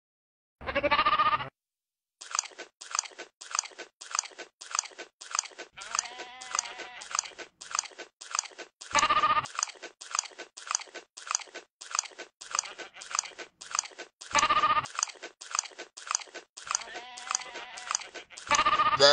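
A goat chewing with steady crunching, about three crunches a second, broken by four short bleats.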